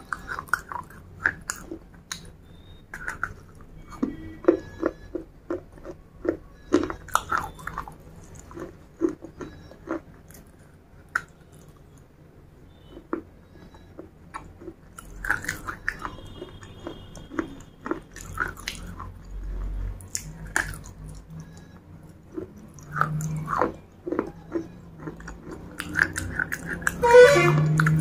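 Close-miked crunching and chewing of baked terracotta clay pot pieces: sharp, crisp cracks at irregular intervals, with the loudest, densest crunch of a bite about a second before the end.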